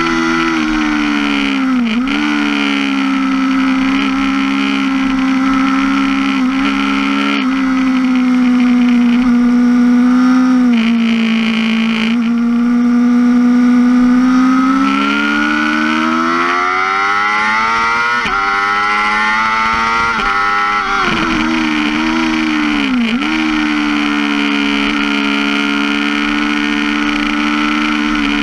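2005 Yamaha R6's 600 cc inline-four engine running at high revs on a racetrack. Its pitch dips sharply about two seconds in, again near eleven seconds and near twenty-three seconds, and climbs steadily for several seconds in the middle as the bike accelerates.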